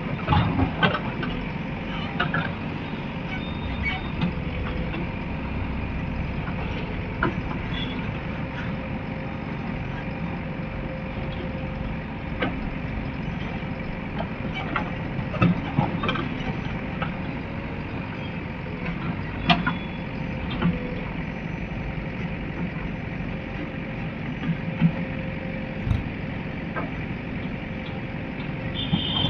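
Heavy diesel machinery running steadily, with scattered sharp clanks and knocks.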